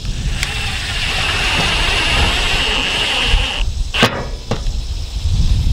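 A power tool cutting a ribbed metal roofing panel, running with a steady high whine and harsh rasp for about three seconds before it stops. Two sharp knocks follow, half a second apart.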